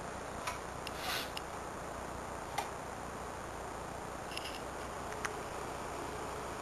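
BBC Micro floppy disc drive writing the utilities back to the disc: a low steady running hum with a few scattered clicks from the drive mechanism.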